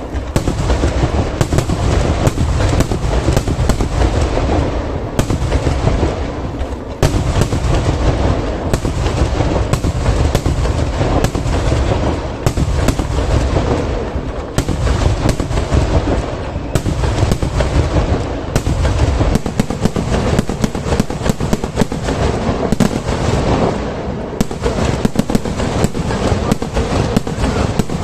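Kerala vedikettu fireworks going off in a dense, continuous barrage: rapid overlapping cracks and booms, easing briefly a few times before building again.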